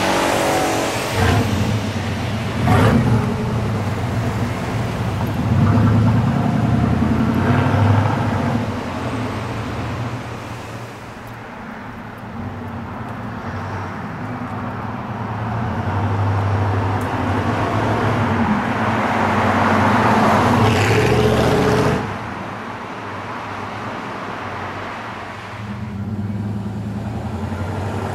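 1995 Chevy van's V8 engine and exhaust running as the van drives past on the street, swelling and fading with each pass, with other road traffic. The sound drops abruptly about three-quarters of the way through.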